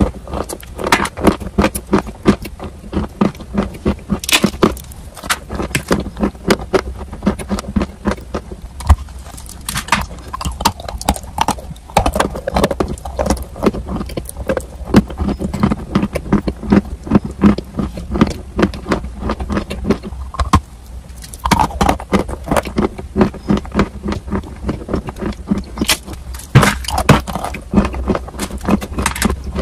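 Close-up crunching and chewing of a chunk of dry chalky clay: dense, crisp cracks and crumbles in quick irregular succession, easing briefly twice, over a steady low hum.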